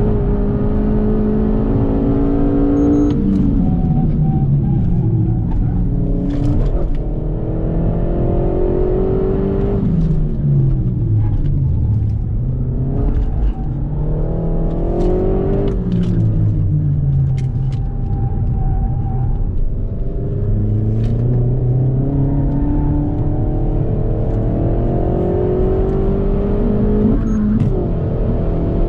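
Renault Mégane 4 RS Trophy's turbocharged four-cylinder engine heard from inside the cabin, driven hard on track. The revs climb under acceleration and fall away several times over as the driver shifts or lifts, with a sharp drop about three seconds in and another near the end.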